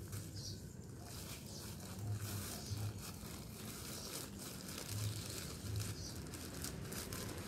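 Black plastic polybag crinkling and rustling, with scattered small crackles of soil, as onion clumps are pressed into the bags by hand.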